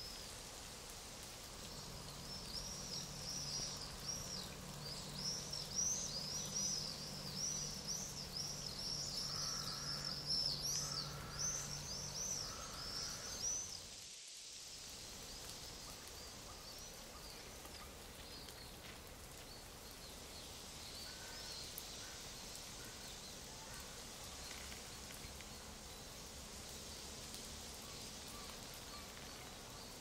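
Small songbirds twittering and chirping densely over a steady outdoor hiss. About halfway through the sound cuts out abruptly for a moment, after which only the hiss and a few scattered chirps remain.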